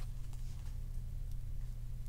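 A few faint clicks of Topps Chrome trading cards being flipped through by hand, over a steady low hum.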